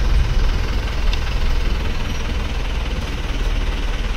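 Safari bus engine running steadily at low revs as the bus crawls along behind a tiger.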